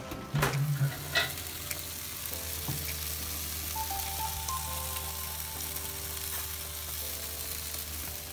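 Chicken drumsticks sizzling steadily on a grill, with a few knocks in the first second.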